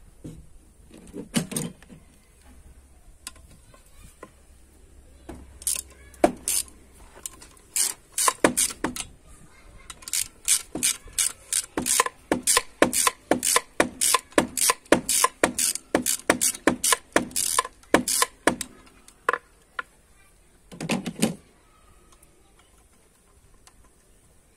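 Ratchet wrench clicking as it drives a hex-bit socket, loosening a bolt on the EGR valve of a diesel engine. The clicks come in quick runs with short pauses, and there is one more brief burst near the end.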